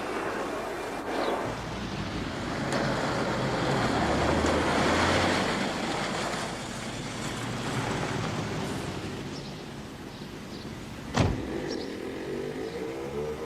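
Car engine and road noise as a car drives, swelling for a few seconds and then easing, with one sharp knock about eleven seconds in.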